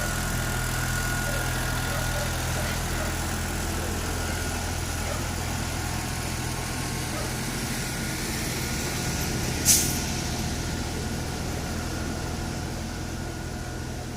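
An engine running steadily, with a single short, sharp hiss about two-thirds of the way through.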